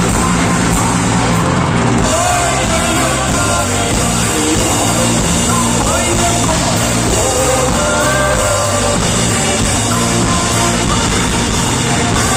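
Rock song played by a band, loud and steady, with a voice singing over it.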